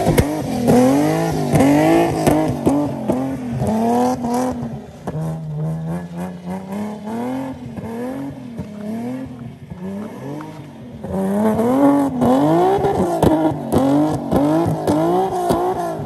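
A car engine revved up and let fall again and again, about one to two revs a second, with sharp exhaust pops in between. It eases off to softer, slower revs in the middle, then picks up again near the end.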